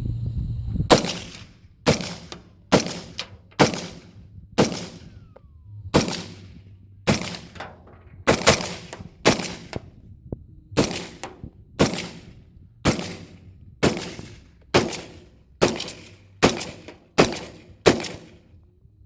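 AR-15 rifle fired semi-automatically, about twenty shots at roughly one a second with two short pauses, each a sharp crack with a brief echoing tail.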